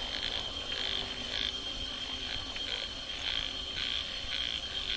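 Frogs croaking in a chorus, short calls repeating irregularly about twice a second, over a steady high-pitched whine.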